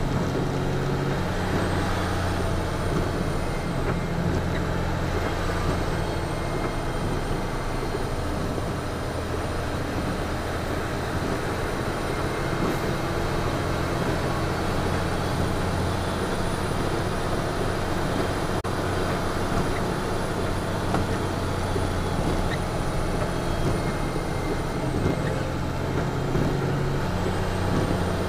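Western Star semi truck's diesel engine running steadily in third gear direct, fully loaded on a long downhill, with tyre and road noise, heard from inside the cab.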